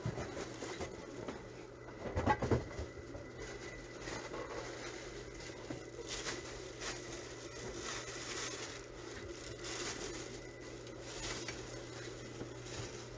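Market ambience with a steady low hum and scattered faint rustling, broken by a brief thump about two seconds in.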